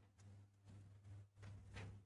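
Near silence: a faint steady low hum with a few soft swells of noise.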